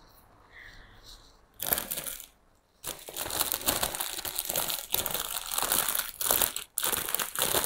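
Clear plastic plant sleeve crinkling as the wrapped potted plant is handled: a short rustle about one and a half seconds in, then almost continuous crinkling from about three seconds in.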